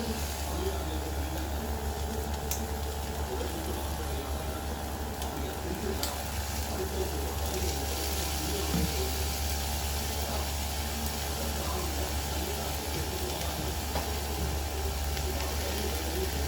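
Chicken fried rice frying in a pan: a steady sizzle that grows fuller about halfway through, over a low steady hum.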